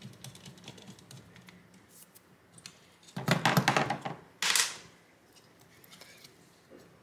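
Handling noises from a graphics card's metal heatsink and plastic fan shroud. Light scattered clicks give way, about three seconds in, to a loud clatter of rapid clicks lasting about a second, then a single sharp knock.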